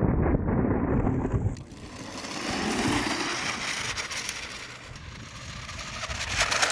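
Direct-drive brushless electric motors and tracks of an RC tracked vehicle running as it drives over beach sand. A loud, bass-heavy rumble changes abruptly about a second and a half in to a quieter, hissier stretch.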